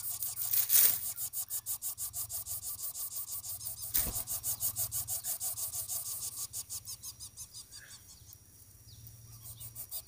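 Lesser coucal nestlings making a rhythmic rasping breathing sound, about four pulses a second, which fades near the end and then picks up again. A single sharp click comes about four seconds in.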